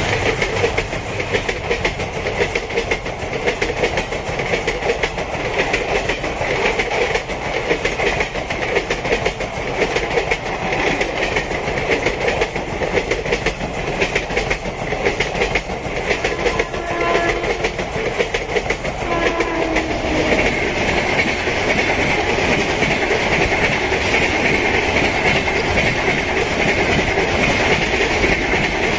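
Indian Railways passenger coaches passing close by at speed, their wheels clattering over the rail joints in a dense, steady clickety-clack.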